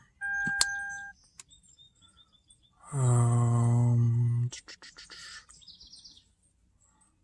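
Electronic warning tones: a short two-note beep with a click, faint high chirps, then a steady low buzz lasting about a second and a half, followed by a few clicks and a brief high-pitched chime.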